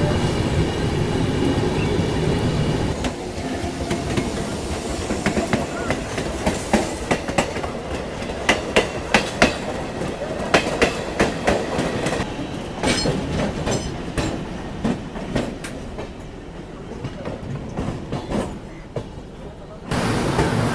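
Passenger train running, heard from an open coach door: a steady rumble, then a fast run of sharp wheel clicks over rail joints and points through the middle. It goes quieter near the end, then jumps suddenly louder just before the end.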